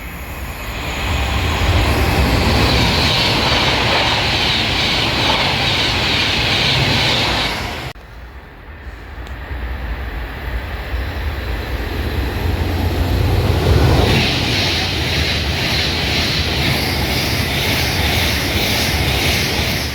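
Trains passing close by at speed: a loud, steady rumble with a hiss of rail and wheel noise. The sound drops off abruptly about eight seconds in, then builds again as a second pass goes by.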